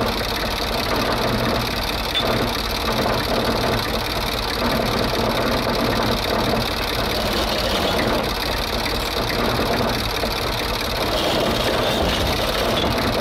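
Tractor engine running at a steady idle with an even, fast mechanical clatter.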